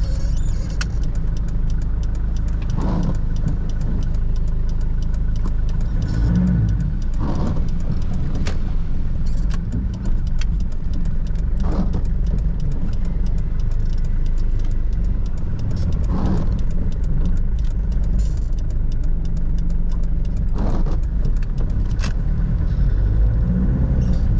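Inside the cab, a 1997 Toyota Hilux's 3.0-litre 5L four-cylinder diesel engine running at low speed through a tight U-turn, with a steady low rumble. A few short clicks and knocks come at irregular moments.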